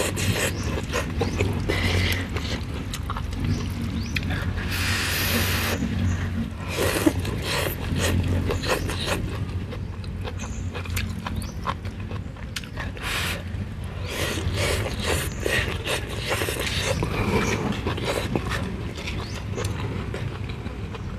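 Close-up eating sounds: noodles slurped and chewed, with chopsticks and a spoon clicking against the bowl.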